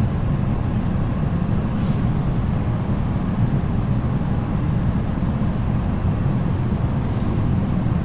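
MTR metro train standing at an underground platform with its doors shut, a steady low rumble from its running equipment, and a short sharp hiss about two seconds in.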